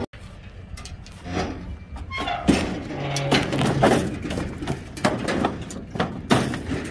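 Heifers stepping out of a stock trailer: irregular knocks and clatters of hooves on the trailer floor, with clanks from the trailer.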